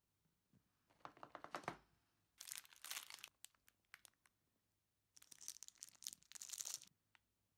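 Clear plastic wrapper around an individually wrapped sweet, crinkled by fingers in three short bursts, with a few light clicks between them.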